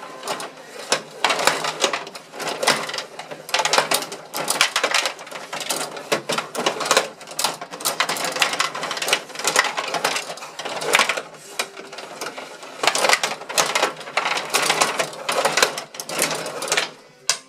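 Gretzky table hockey game in play: the player rods being slid and spun fast, a continuous plastic clatter with sharp clacks as the puck hits the players and the boards.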